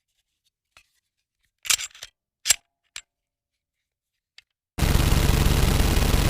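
A few sharp, separate clicks over dead silence, the loudest two close together about two seconds in. About three-quarters of the way through, a loud, continuous, rough noise with a fast low pulse cuts in abruptly.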